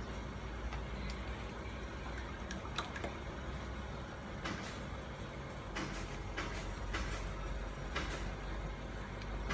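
A few short splashes and clicks of water in a shallow plastic tub as a snapping turtle shifts about, over a steady low background rumble.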